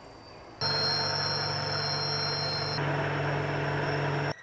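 Metalworking machine cutting steel: a steady high whine over a low motor hum that starts suddenly about half a second in, shifts in tone about halfway through, and cuts off abruptly near the end.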